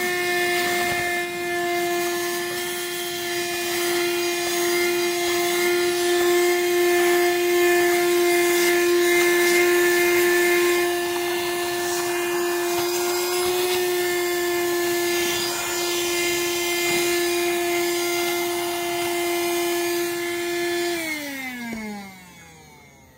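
A small electric motor and fan, a cleaning tool used on dusty computer parts, runs with a steady hum. About two seconds before the end it is switched off and winds down, its pitch falling as it fades.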